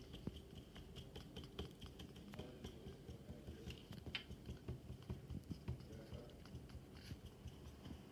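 Yellow felt-tip marker tapped against paper again and again, a faint, quick, uneven run of taps as it stipples small dots.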